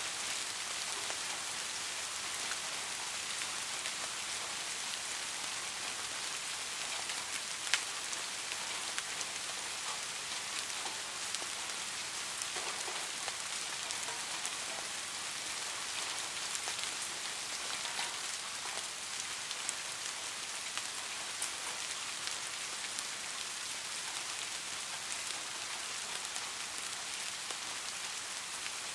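Steady rainfall: an even hiss with many scattered sharp drop ticks, one louder tick about eight seconds in.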